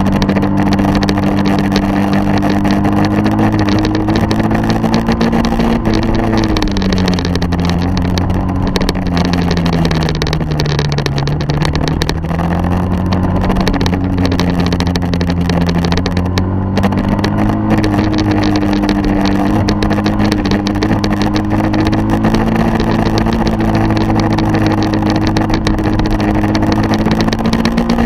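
Engine of a motor vehicle running steadily under a constant rush of wind and road noise. Its pitch sinks slowly for several seconds, bottoms out around the middle, then climbs back, as the vehicle slows and picks up speed again.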